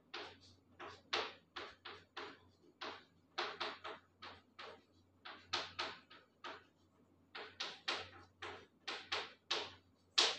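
Chalk scratching on a blackboard in short, irregular strokes, two or three a second, as chemical structures are written and drawn. A faint low steady hum runs underneath.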